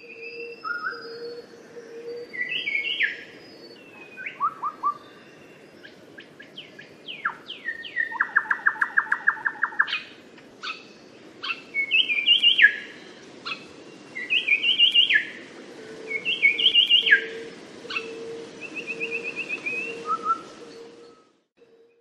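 Little shrikethrush (Colluricincla megarhyncha) singing a varied series of clear whistled phrases, many of them rising and then dropping sharply. A run of about a dozen quick repeated notes sounds around the middle, and a short trill comes near the end. A faint low steady note comes and goes in the background.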